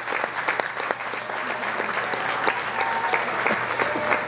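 Audience applauding, many hands clapping steadily, with a few voices calling out in the second half.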